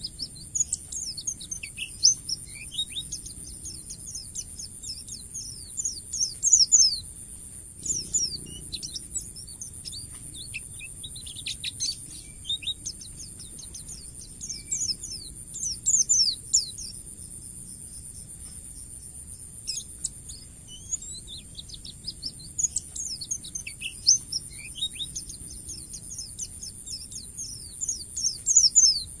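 White-eye (pleci) singing in its wild-type "ngalas" style: rapid runs of high, sharp, downward-sliding notes in repeated bursts of a few seconds, over a steady high-pitched hum.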